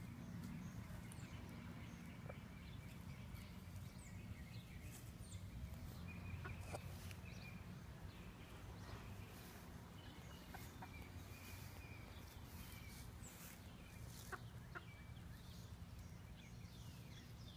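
Backyard hens clucking quietly and softly as they forage, with scattered short high chirps.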